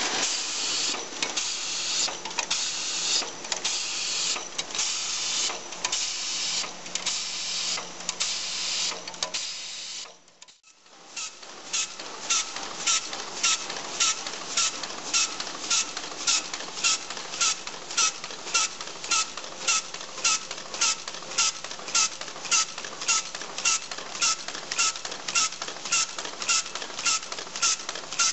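Brass rifle-case manufacturing machines running. First a case-processing machine clatters unevenly over a low hum. Then, after a brief break about ten seconds in, a crank-driven press cycles at a steady rhythm of about two strokes a second, each stroke a sharp clack with a short ring.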